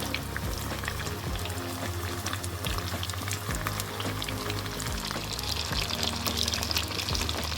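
Background music over hot oil sizzling and crackling in a pan as battered tofu pieces fry.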